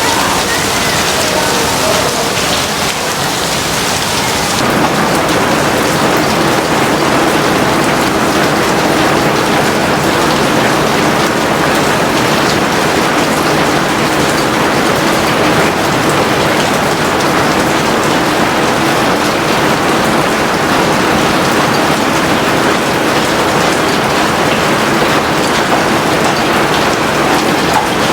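Steady heavy rain falling, a dense even hiss, with a shift in its texture about four and a half seconds in.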